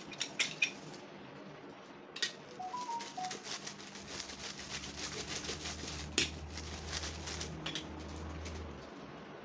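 Rolling pin rolling out a ball of bun dough on a tabletop: a low rumble under rapid rustling, with a few sharp knocks.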